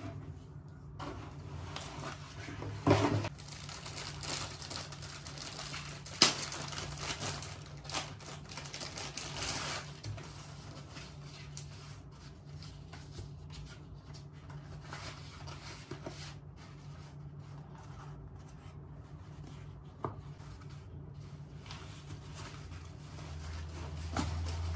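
Plastic wrapping crinkling and rustling as magazine gift bags are unwrapped and handled, with a sharp knock about three seconds in and another about six seconds in.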